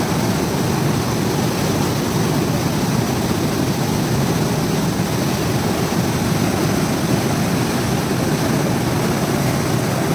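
River water rushing and crashing with force at a dam, throwing up spray: a loud, steady roar with no letup.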